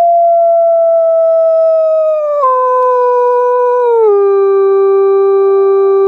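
A dog howling: one long, loud note that drops in pitch in two steps, about two and a half and four seconds in.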